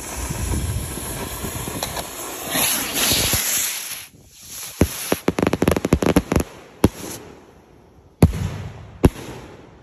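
A rack of stick rockets launching, with a steady fiery hiss for about four seconds. Then comes a quick run of sharp pops and crackles as the rockets burst, and two louder single bangs near the end.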